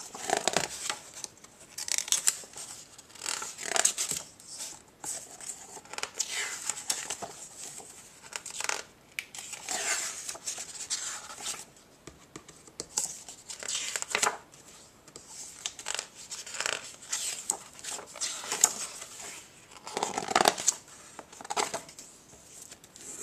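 Pages of a picture book being turned and handled: paper rustling and swishing in repeated bursts every second or two, with small taps and clicks between them.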